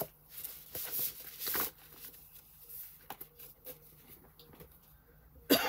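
Sheets of patterned craft paper being handled and shuffled, with two louder rustles about a second in and then quieter handling. A sudden cough near the end.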